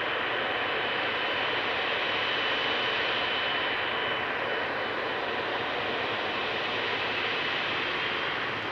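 Boeing 777F's GE90 turbofan engines at taxi power: a steady jet rush with a thin high whine over it that fades about halfway through.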